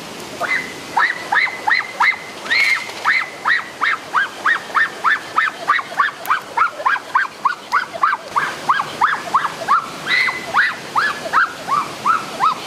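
A bird calling in a long, fast series of short notes, about three a second, each rising and falling in pitch; the notes drift slightly lower near the end.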